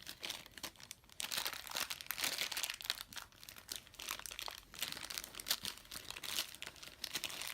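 Crinkly blind-bag packaging being handled and torn open by hand, an irregular crackling throughout.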